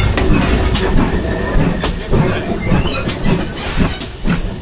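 Steam tank locomotive rolling slowly past on the adjacent track: a low rumble with irregular knocks and clicks from its wheels on the rail joints.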